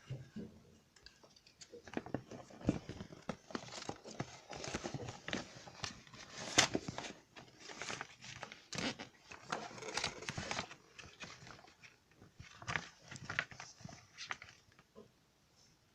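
CD packaging being unwrapped: plastic wrap crinkling and tearing, with many sharp irregular clicks of handling, dying away near the end.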